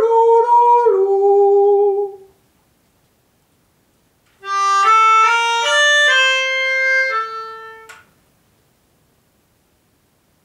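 A man's voice sings a short phrase of a few gliding notes. About four seconds in, a melodica, blown through its mouth tube, plays a short melodic motif of about seven notes in steps, the last two held longer, for learners to sing back by ear.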